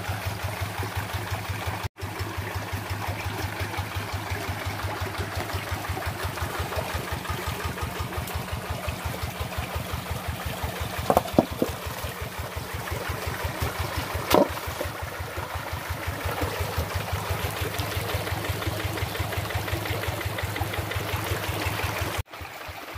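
Hand tractor's single-cylinder diesel engine idling with a steady, even beat. A few short sharp knocks come through near the middle.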